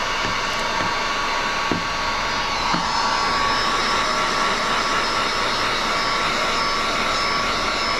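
Heat gun blowing steadily, its motor whining on a few steady tones, while it heats window tint film to shrink it onto a car's curved rear glass.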